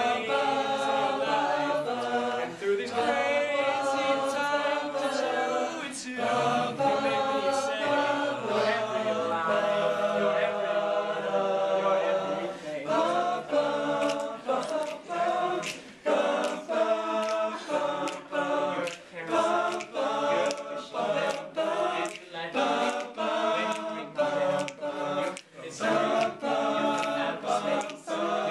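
A group of male voices singing a cappella in harmony, a serenade. The first half is mostly long held chords; about halfway through the singing turns to shorter, more rhythmic notes.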